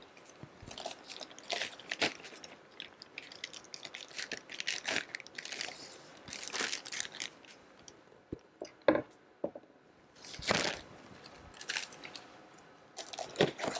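Clear plastic bag crinkling and rustling as a desk phone is slid out of it, in irregular bursts with a few sharp clicks, the loudest about nine seconds in.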